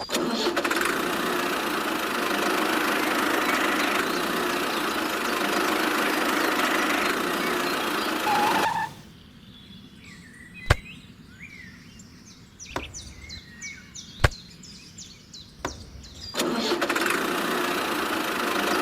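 A small motor running steadily, stopping about halfway through and starting again near the end. In the pause there are a few sharp clicks and short high chirps.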